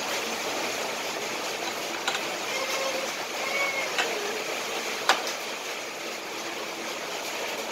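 Steady background noise with a few sharp clicks, the loudest about five seconds in.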